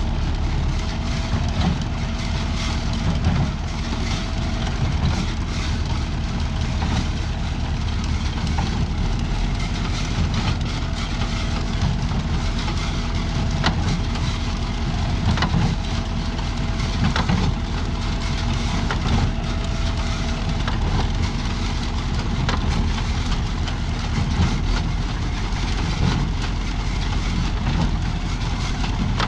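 Tractor engine running steadily, driving a New Holland 68 square baler. A regular knock from the baler's mechanism repeats about every two seconds.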